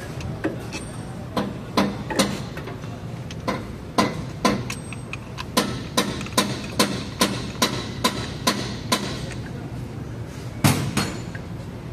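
Sharp metallic clicks and knocks from a brake caliper and a threaded-rod piston compressor tool as the caliper piston is pushed back. The clicks are scattered at first, then come evenly, about two and a half a second, from about five and a half to nine seconds in, with a louder knock near the end, over a steady low hum.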